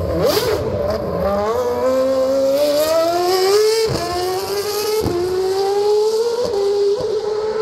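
Red Bull Formula 1 car's engine accelerating hard through the gears, its high pitch climbing and cutting briefly at each of several quick upshifts.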